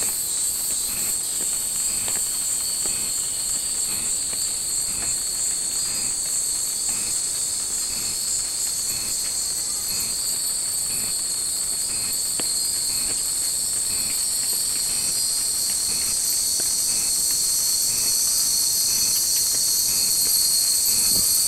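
A steady, high-pitched chorus of cicadas, growing slightly louder toward the end, with faint footsteps on stone steps about once a second underneath.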